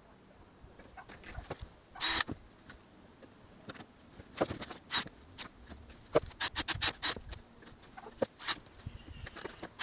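Hand work on a build: scattered small knocks and clicks, a short scrape about two seconds in, and a quick run of clicks near the middle.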